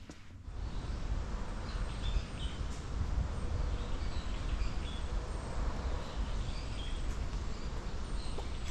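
Birds chirping now and then over a steady outdoor rush of noise with a low rumble.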